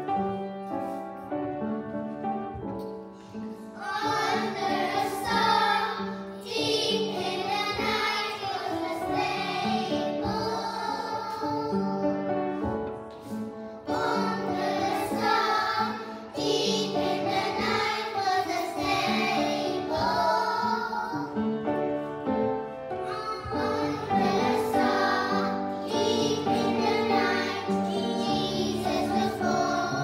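A group of young children singing together in unison over an instrumental accompaniment. The accompaniment plays alone for the first few seconds before the voices come in.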